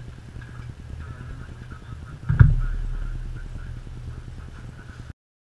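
Steady low room hum with one sudden heavy thump a little over two seconds in, its low rumble dying away over the next couple of seconds. Near the end the sound cuts out to dead silence, a dropout in the recording.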